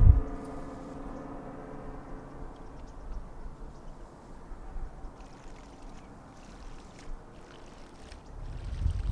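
Water sloshing and lapping with a few small splashes, after a steady hum that fades out in the first second or two.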